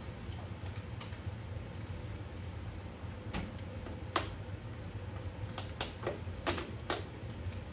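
A handful of sharp clicks and knocks from kitchen items being handled and set down on a counter, the loudest about four seconds in, a quick pair near six and a half seconds, over a steady low hum.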